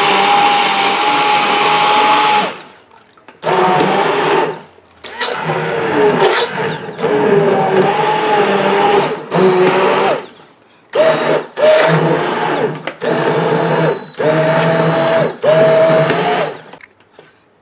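Handheld immersion blender running in repeated bursts, switched on and off about six times, its blades churning cooked tomatoes into a sauce. The motor whine shifts in pitch from burst to burst as it is plunged up and down through the sauce.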